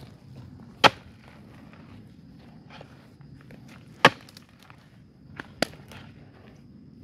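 Digging tool striking into a termite mound: three sharp blows about a second in, about four seconds in and about five and a half seconds in, with lighter knocks and scrapes of earth between.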